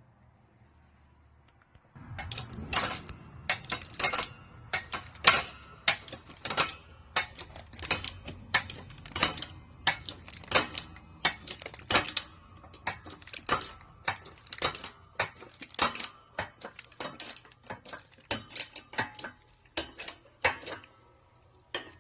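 Metal press hardware clinking and knocking while a handboard is pressed: sharp, irregular clinks about one to two a second, starting about two seconds in, over a low steady hum.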